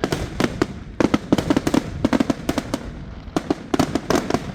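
Fireworks volleys: rapid overlapping bangs of aerial shells bursting, in dense clusters a second or more long. This is what the filmer takes for the grand finale.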